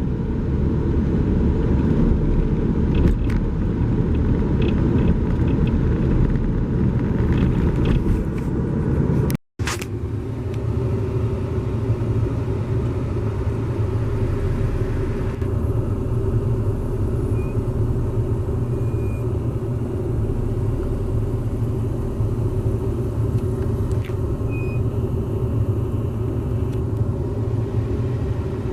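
Steady rumble of a car on the road, engine and tyre noise heard from inside, cut off for a moment about nine and a half seconds in and then running on.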